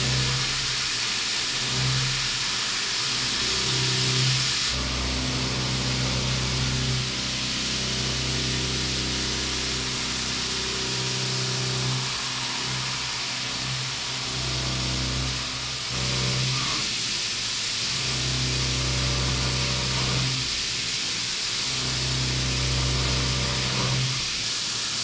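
Doosan DNM5700L CNC vertical mill roughing pockets in titanium with a Harvey end mill, ramping in: a steady hiss of flood coolant spray over a low motor hum that shifts between pitches every second or few.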